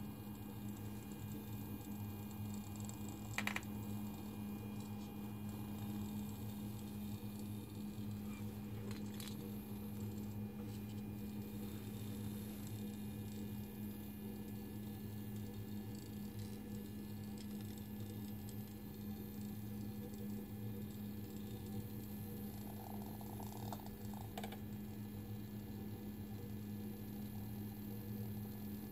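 Small battery-powered ladybug cat toy running on a tile floor, its tiny motor giving a steady buzz, with a sharp click about three and a half seconds in.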